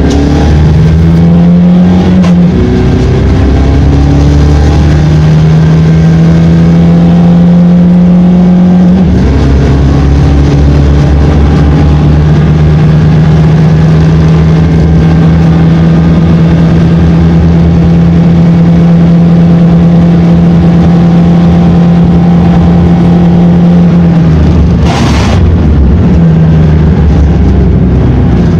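Volkswagen Polo R Cup's turbo-diesel engine at full throttle, heard inside the race car, its pitch climbing through the gears with upshifts about two and nine seconds in, then a long slow climb in top gear. Near the end the pitch drops as the driver lifts for a corner, a short hiss follows, and the engine climbs again.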